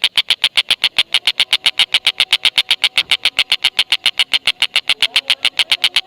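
Tengkek buto giving its long unbroken 'ngekek' call: a rapid, even run of sharp notes at about ten a second with no pause.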